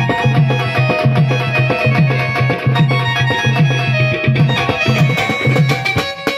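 Instrumental Marathi folk music of a Waghya-Murali party: a hand drum beats a steady rhythm of deep strokes under a held melody line, with a brief break just before the end.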